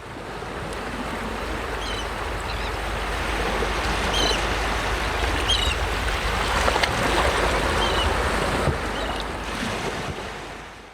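Steady rushing noise, like surf, fading in at the start and out at the end, with a few short high chirps over it now and then.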